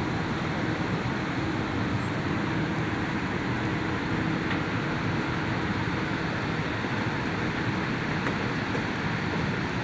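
Steady hum and hiss of a diesel passenger train standing idle at a station platform.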